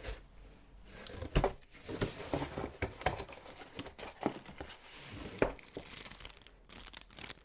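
Packaging being unwrapped by hand: crinkling, rustling wrap broken by several sharp crackles.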